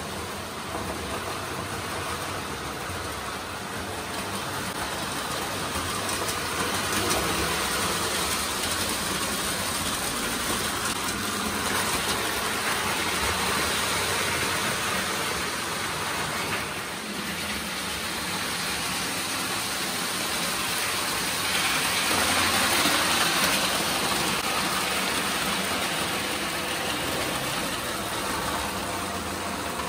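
Lionel O gauge toy trains running on three-rail tinplate track: a steady whirring and rumbling of small electric motors and metal wheels that swells a little about seven seconds in and again past twenty seconds, as the train passes closer.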